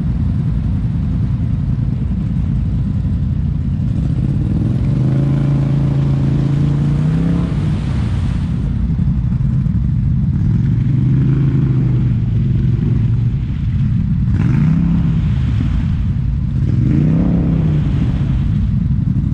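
ATV engine running under way, with a steady low rumble and four throttle swells where the pitch rises and falls again.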